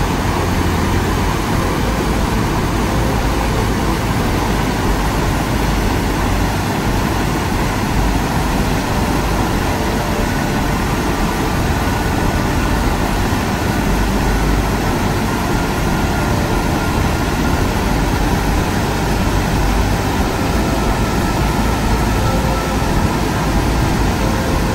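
Steady, unbroken roar of a large waterfall, with a heavy low rumble.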